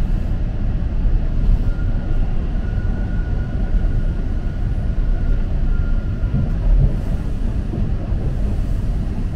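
TTC Line 2 subway train running along the track, heard from inside the car: a steady loud rumble of wheels and motors, with a thin high whine from about two to six and a half seconds in.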